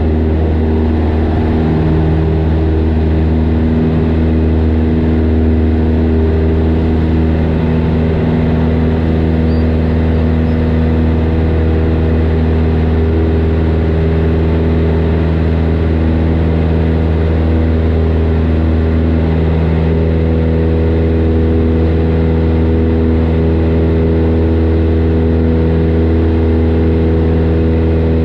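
Single-engine light airplane's piston engine and propeller running steadily at takeoff power through lift-off and the initial climb, heard from inside the cockpit as a loud, even drone.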